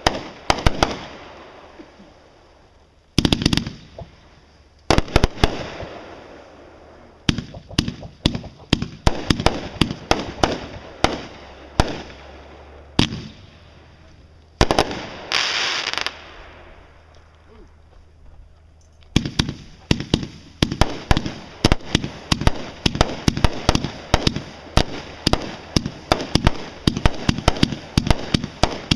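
Aerial fireworks going off: sharp bangs and crackling reports, each with an echoing tail, and a hiss of about a second and a half midway. About two-thirds of the way through it turns into a rapid barrage of reports, several a second.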